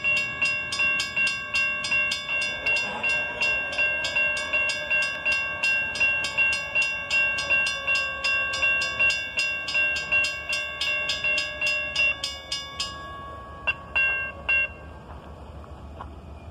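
Railroad crossing warning bell ringing in a fast, even run of metallic dings, marking the warning cycle as the gates come down. It stops about thirteen seconds in, with a few last strikes a moment later, leaving a low wind rumble.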